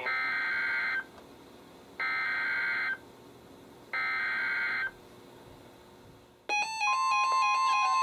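NOAA Weather Radio SAME data header: three one-second bursts of digital warbling tones, about a second apart, carrying the coded alert for a severe thunderstorm warning. About six and a half seconds in, a bank of weather alert radios goes off at once, electronic alarm beeps over a steady high tone.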